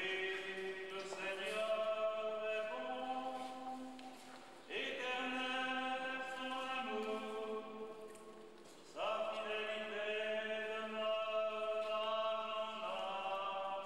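Slow, chant-like liturgical singing in three phrases, with long held notes that step between pitches.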